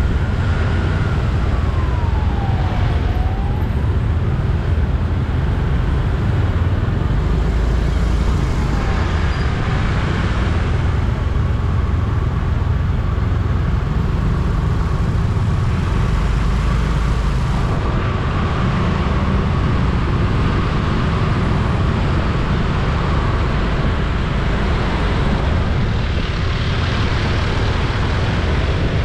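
Steady road and engine rumble of a vehicle driving in traffic. A siren wails up and down briefly in the first few seconds.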